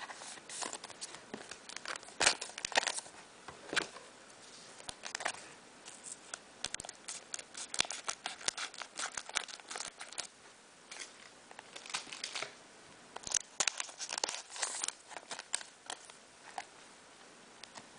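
Foil booster pack wrapper crinkling as it is opened, and trading cards being handled, in short irregular rustles and clicks.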